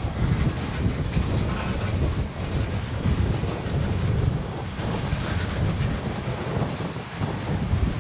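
A freight train's covered hopper cars rolling past, their wheels making a steady rumble on the rails with some clickety-clack.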